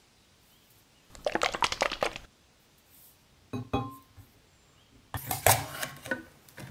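A ring-pull tin can handled with a quick run of tapping and scratching on its metal, then a few clicks as the pull tab is lifted with a brief metallic ping. From about five seconds in, the ring-pull lid is pulled and peeled open with a loud crackling run of clicks.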